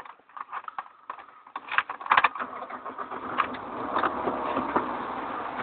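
Car engine started: a few clicks, then the engine catches about a second and a half in and runs on steadily.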